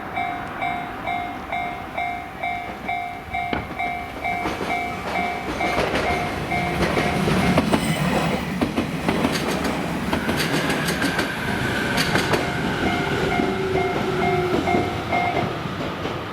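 Japanese level-crossing alarm ringing in a steady pulsed two-tone beat, about two and a half strokes a second. A train runs through the crossing with its wheels clattering over the rail joints, and the alarm cuts off about a second before the end.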